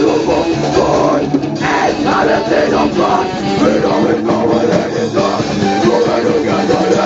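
Deathcore band playing loudly: distorted electric guitars, bass and a drum kit, dense and continuous.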